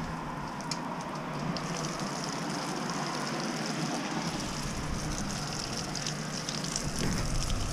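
Steady splashing of a thin stream of hot spring water falling onto a perforated metal grate, mixed with falling rain. The splashing hiss grows a little about a second and a half in.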